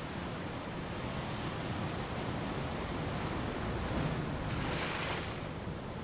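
Ocean surf washing against rocks, a steady rush of water with one wave breaking louder about four and a half seconds in.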